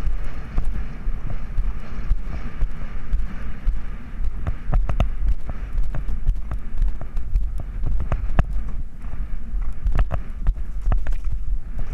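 A horse galloping on a cross-country course, recorded from the rider's helmet camera: heavy wind buffeting on the microphone over the horse's hoofbeats. From about four seconds in, the hoof strikes and tack knocks come through as sharper clicks.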